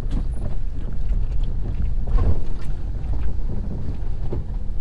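Mahindra XUV500 driving slowly over a rough dirt track, heard from inside the cabin: a steady low rumble of engine and tyres, with scattered knocks and rattles from the bumps.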